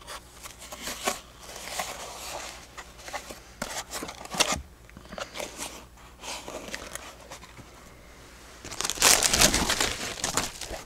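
Paper and packaging rustling and crinkling as items are handled, with scattered small clicks and a louder stretch of crinkling near the end.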